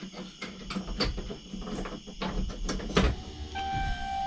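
Scattered clicks and knocks of hand work in the truck cab, then about three and a half seconds in a steady electronic warning chime starts from the Ram's instrument cluster as the ignition is switched on.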